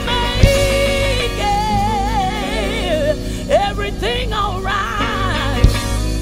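Live gospel music: women's voices singing long, wavering held notes over keyboard and band accompaniment with a steady bass line. Two sharp hits stand out, about half a second in and near the end.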